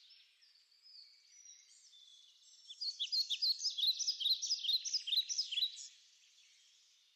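A songbird singing a quick run of high chirping notes, about five a second, for around three seconds starting near the middle, with a few faint chirps before it.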